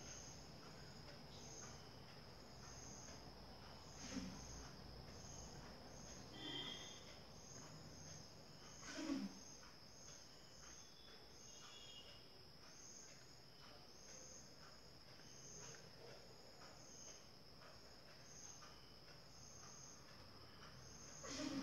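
Near silence: faint, even, high-pitched insect chirping, about two chirps a second, with a few soft rustles of yarn being handled.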